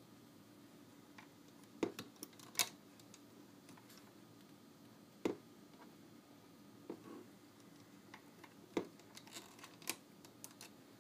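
Scattered light clicks and taps of rubber bands being stretched over and snapped onto the pegs of a clear plastic rubber-band loom, with fingers and nails knocking the plastic. A few sharper clicks stand out, about two, five and nine seconds in.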